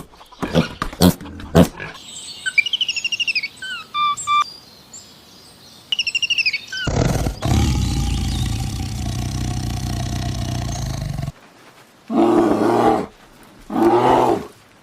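A run of different animal calls: a few sharp clicks, then high chirps that slide down in pitch, then a long roar of about four seconds that cuts off suddenly, then two shorter calls near the end.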